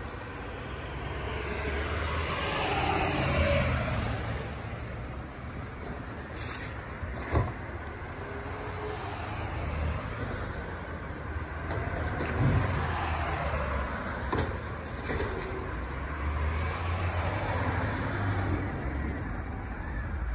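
Garbage truck's diesel engine running as it collects at the curb, its revs rising and falling while the lift raises a trash cart over the cab to dump it. Two sharp knocks from the cart and lift come about seven and twelve seconds in.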